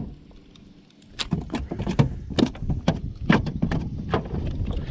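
Irregular clicks and knocks, about three a second after a quiet first second, from a fishing rod, casting reel and metal blade bait being handled in a boat.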